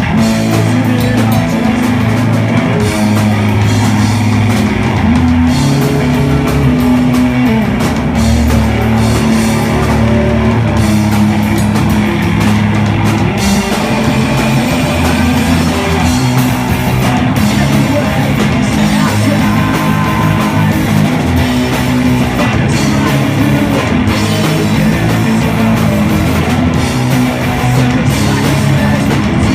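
Live rock band playing, with electric guitars, bass and a drum kit, and vocals.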